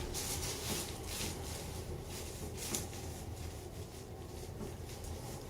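Soft rustling and rubbing of hands, clothing and treatment-table padding as a chiropractor works a patient by hand, with a few faint clicks, the sharpest about two and a half seconds in, over a low steady hum.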